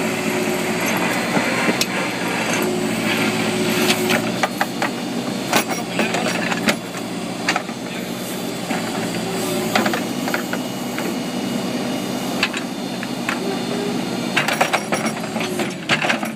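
Case 580M backhoe's diesel engine running steadily, its pitch stepping up and down in places, with scattered sharp knocks and clanks.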